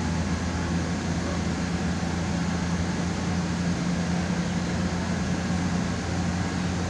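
SA139 diesel railbus running at speed, heard from inside: a steady low engine hum under a continuous rush of wheel and running noise, with no change in pace.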